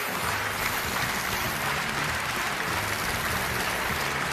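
Studio audience applauding steadily, with a faint low hum underneath.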